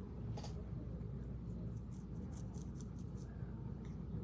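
Faint light ticks and scratches of small makeup items being handled, over a low steady room hum.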